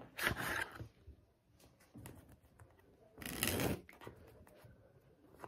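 A deck of playing cards handled in the hands, taken from its cardboard tuck box and riffled along the edge: two short papery rustles, the louder about three seconds in.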